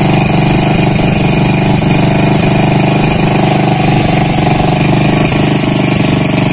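An engine on a fishing boat running loudly and steadily at one unchanging speed.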